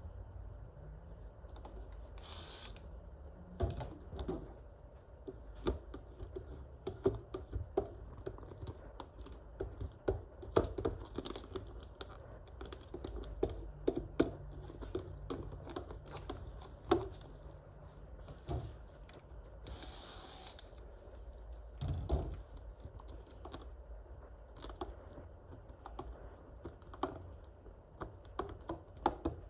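A squeegee and fingers working wet paint protection film over a car's side-mirror cap: a long, irregular run of small clicks, taps and crinkles from the film and card. Two short hisses of spray, one just after the start and one about two-thirds through.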